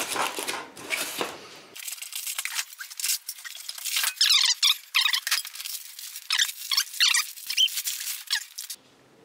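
Styrofoam packing insert squeaking as parts are pulled and worked out of it: a dense run of shrill, wavering squeaks from about two seconds in until just before the end, after a couple of seconds of rustling handling.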